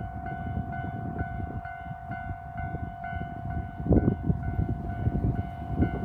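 Japanese level-crossing warning bell ringing in a fast repeating electronic ding over the low rumble of a passing local train, with a heavy knock of wheels on the rails about four seconds in. The bell stops just before the end.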